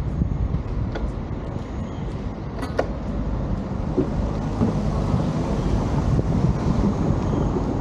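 Steady low rumble of a vehicle on the move, with a couple of short clicks.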